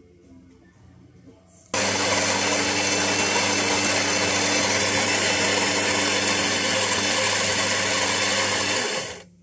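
Saeco PicoBaristo super-automatic espresso machine's built-in ceramic burr grinder grinding beans for a fresh cup, the first stage of brewing. A loud, steady grind over a low motor hum starts about two seconds in and stops abruptly near the end.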